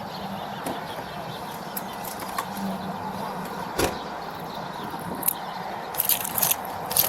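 Steady low background hum, with one sharp click about four seconds in and a cluster of clicks and rustles near the end as clothing and pockets are handled during a pat-down search.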